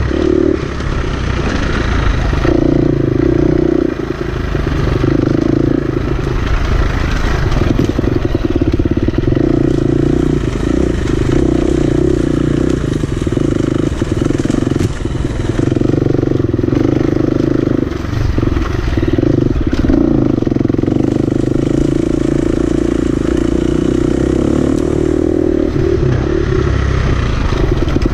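Off-road dirt bike engine running hard under load, holding a steady pitch for several seconds at a time with brief drops when the throttle is eased, plus scattered knocks and rattles from the bike over the rough trail.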